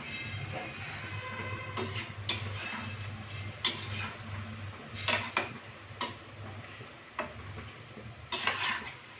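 Thekua deep-frying in oil in a metal kadai, a steady sizzle under sharp, irregular clinks of a metal spoon against the pan as the pieces are turned, several in a row with a cluster near the end.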